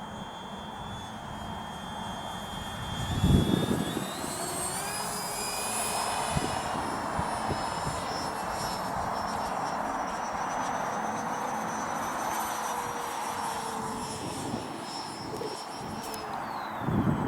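Twin 70 mm twelve-blade electric ducted fans of a model ME262 jet, whining steadily in flight. The pitch climbs about four seconds in, holds, and drops near the end. Wind buffets the microphone about three seconds in and again at the end.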